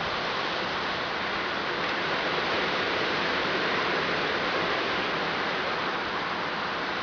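Wind blowing through trees, a steady rushing hiss of leaves that swells slightly midway.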